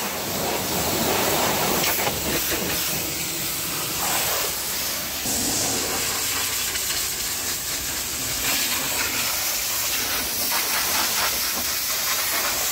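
Pressure washer jet spraying against a car's underbody and wheel: a steady hiss of high-pressure water striking the car.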